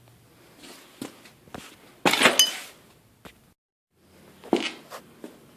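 Metal shop work while a truck cab is lowered onto its mounts on a jack: a few sharp knocks, then a loud half-second metallic clatter with a ringing scrape about two seconds in. A brief dropout follows, then more knocks.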